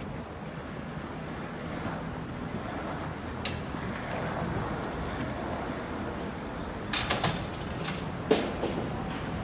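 Steady city street noise with passing traffic, broken by a quick cluster of sharp knocks about seven seconds in and one louder knock a second later.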